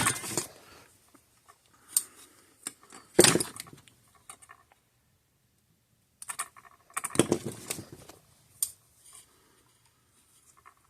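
Hand-work clatter of pliers and small metal parts as spade connectors and wiring are fitted inside an electric fence charger: short clinking, rattling bursts with a quiet spell in the middle.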